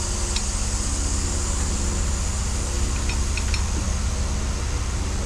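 Steady machine hum with a low drone, like a shop fan running, with a few faint light clicks of a steel accessory bracket being positioned against the engine's front, about half a second in and again around three seconds in.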